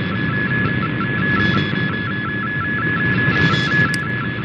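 MFSK32 digital image transmission received on shortwave: a steady high data tone with a rapid, regular pulsing tone beneath it, over radio static and hiss. A brief click about four seconds in.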